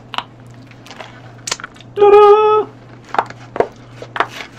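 Paper and a cardboard food box crinkling and rustling as a sandwich is unwrapped, in short scattered bursts. About two seconds in, a brief loud steady tone sounds for about half a second, the loudest sound here.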